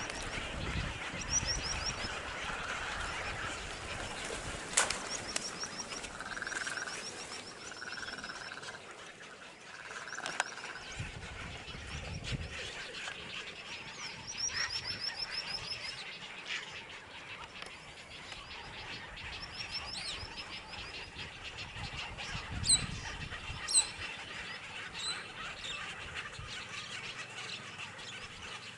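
Wild birds calling: short, high, rapid trills repeated every few seconds, with lower calls in between. A few sharp clicks stand out, one about five seconds in and two near 23 seconds.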